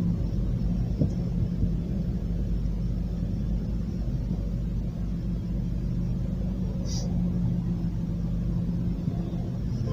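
Steady vehicle engine and road rumble: a low hum holding one pitch, as when cruising at a constant speed.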